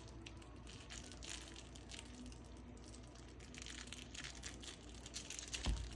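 Chihuahua puppies scuffling and playing, with soft rustling, crinkling and small clicks, and one louder thump near the end.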